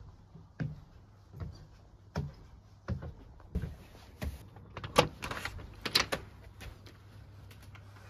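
Footsteps climbing wooden outdoor stairs and crossing a timber deck, one thud about every three-quarters of a second. From about five seconds in comes a clatter of clicks and rattles as a door is opened, the loudest sounds.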